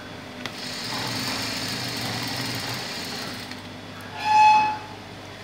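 Industrial sewing machine running a seam, a steady whirring hum for about three seconds that then stops. About four seconds in there is a short, loud, high-pitched tone.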